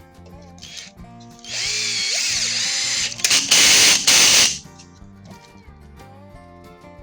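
A handheld power tool runs for about three seconds, starting about a second and a half in. It gets louder in its second half with brief dips, then stops, over background guitar music.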